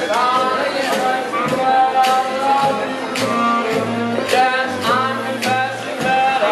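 Jazz band playing, with a singer over a stepping bass line and a steady beat.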